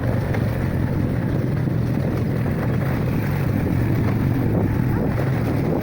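An engine running steadily under way, with a low hum and wind noise on the microphone.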